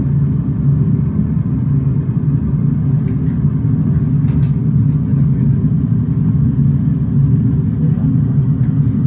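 Steady low rumble of simulated Airbus A320 flight-deck noise, engines and airflow, played through the full-flight simulator's sound system, with a couple of faint clicks a few seconds in.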